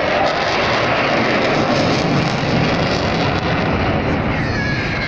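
Loud, steady jet noise from a Eurofighter Typhoon's twin turbofan engines as the fighter flies past.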